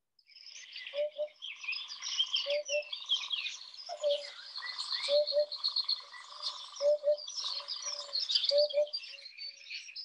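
Recording of a hoopoe calling, played through a phone's speaker: soft, low paired notes, a "whoop whoop", repeated every one to two seconds over other birds chirping.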